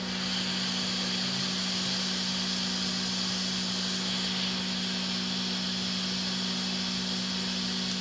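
Hot-air rework gun blowing a steady hiss of hot air onto a laptop motherboard, heating a capacitor on a shorted rail to desolder it.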